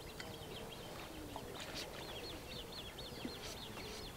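A small songbird singing a long, even run of high chirping notes, about five a second, faintly.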